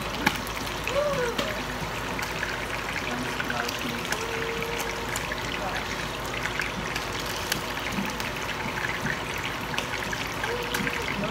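Round scad frying in hot oil in a skillet: steady sizzling with scattered crackling pops.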